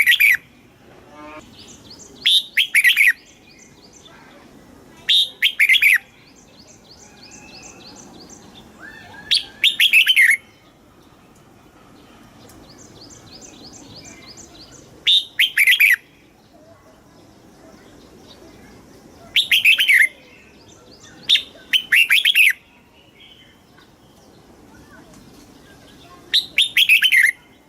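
Red-whiskered bulbul singing: about eight short, loud whistled phrases, each around a second long, coming every few seconds, with faint rapid chattering between them.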